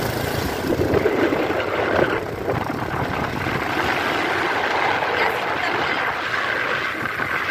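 Steady rush of wind and road noise from a moving vehicle on the road.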